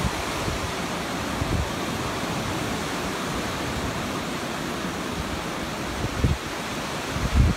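Surf: several rows of waves breaking and washing in on a beach, a steady rushing hiss, with a few low gusts of wind on the microphone near the end.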